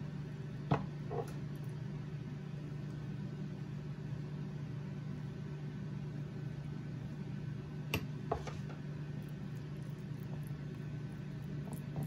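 Steady low hum of a quiet kitchen, with two pairs of light clicks, about a second in and about eight seconds in, as a silicone spatula spreads thick cream over a cake on a ceramic plate.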